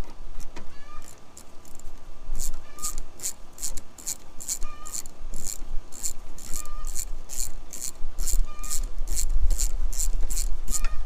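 Ratchet wrench clicking in a steady run of back-strokes, about two or three clicks a second, while the mower's old spark plug is worked out. A faint short chirp repeats about every two seconds behind it.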